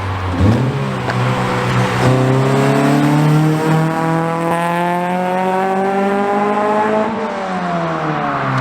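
Acura Integra GSR's VTEC four-cylinder on an aftermarket header-back exhaust accelerating hard from a launch: the engine note climbs, steps about two seconds in around a gear change, keeps rising for several seconds, then drops in pitch near the end.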